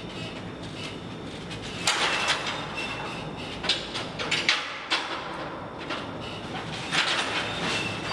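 A large printed sheet being peeled and pulled away from a wall, rasping and ripping in several short bursts over a steady background hum.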